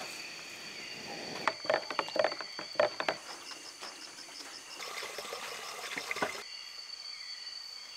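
Night insects calling, a steady high-pitched drone with a pulsing trill over it. A quick run of clicks and knocks comes about one and a half to three seconds in.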